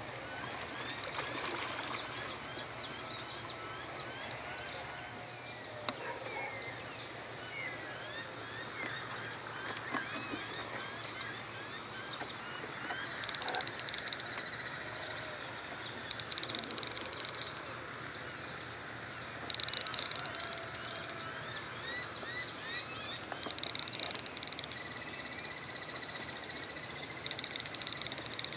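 Outdoor animal chorus of many short, repeated rising chirping calls. From about halfway it is joined several times by loud bouts of high, shrill buzzing, the last one a steady drawn-out tone near the end.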